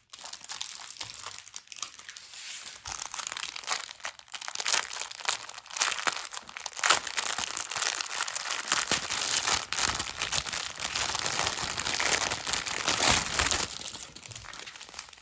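Plastic packaging crinkling and rustling as small bags of diamond painting drills are handled and sorted, busier through the middle and easing off near the end.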